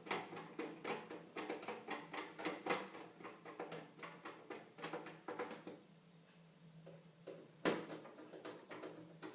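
Plastic console cover and case parts being handled and pressed into place: a run of small clicks and rattles, with one sharper click about eight seconds in.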